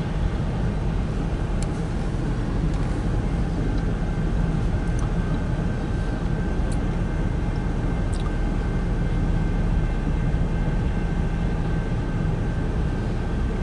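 Freight cars of a passing train rolling over a grade crossing: a steady rumble of wheels on rail with a few light clicks, heard muffled from inside a vehicle's cabin.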